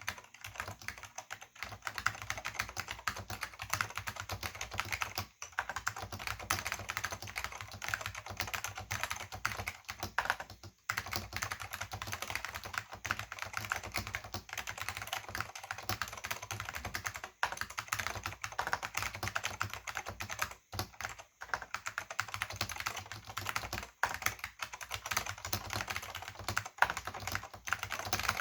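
Fast continuous typing on a Silicon Graphics Granite keyboard with orange Alps SKCM switches and thin PBT keycaps, a quick run of clicky keystrokes with only brief pauses. The strokes sound hollow and thin, with no bass, which the owner puts down to the chassis or the thin keycaps.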